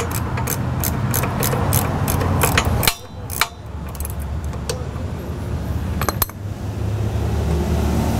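Socket ratchet clicking in quick, even strokes, about three or four a second, as a 17 mm fill bolt is worked loose on an outboard's tilt-and-trim reservoir. The clicking stops about three seconds in, and a few more clicks come near six seconds, over a steady low hum.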